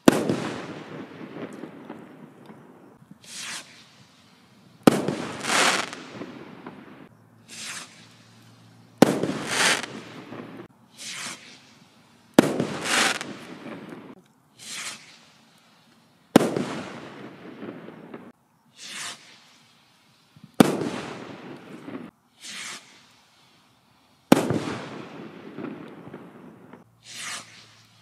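Firework rockets from a Quantum 'Afterburner' rocket pack fired one after another, about one every four seconds: each rushes up with a short hiss and bursts with a sharp bang that trails off over a second or two. Seven bursts in all.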